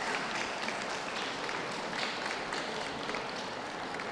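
Audience applauding: a steady patter of many hands clapping at an even level.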